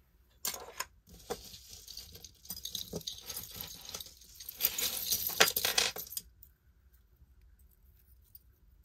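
Metal jewellery chains and pendants jingling and clinking as a hand rummages through a tangled pile on a table. The jingling stops about six seconds in.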